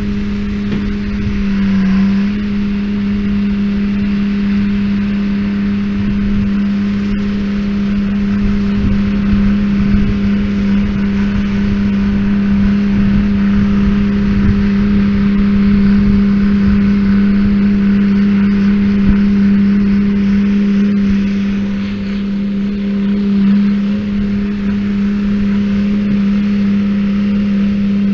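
Tractor running steadily while baling hay, a constant loud droning hum that holds one pitch throughout.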